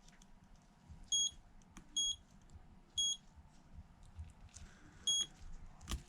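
Four short, high electronic beeps, spaced about a second apart with a longer gap before the last, with faint small clicks in between.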